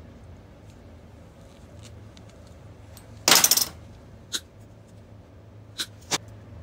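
Small stainless-steel wire pieces clinking on a steel worktable while being worked with pliers: one loud metallic clatter about three seconds in, then three short sharp clicks.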